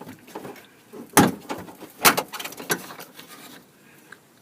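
Clicks and clacks of the door's handle and latch mechanism being worked by hand, with two loud sharp clacks about a second and two seconds in and lighter clicks around them.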